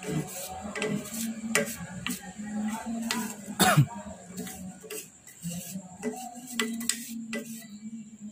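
A wooden stick scraping and knocking inside a Vespa racing exhaust muffler, digging out the old oil-soaked glasswool packing. Irregular clicks and scrapes, with one louder knock a little past halfway.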